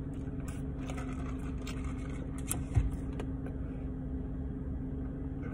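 Steady low hum of a parked car running, heard from inside the cabin. There is a single soft thump about three seconds in.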